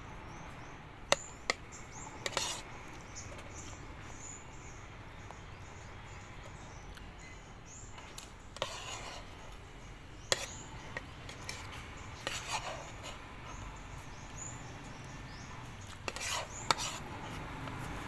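Metal spoon and fork clinking and scraping now and then against a plate, a few sharp clicks spread out with long gaps between.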